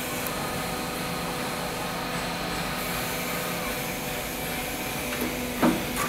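Garage door track roll forming machine running: a steady machine hum with a few held tones from its motors and hydraulic unit as the steel profile feeds through. A short thump sounds near the end.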